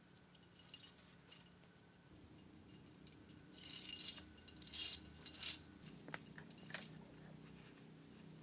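Light clinking and rattling of small hard objects being handled, loudest from about three and a half to five and a half seconds in, with a few sharp ticks after.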